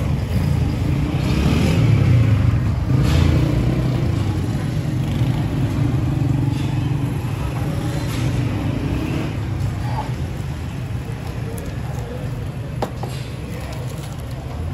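A motor vehicle's engine running close by in street traffic: a low rumble that is loudest about two seconds in, then slowly fades.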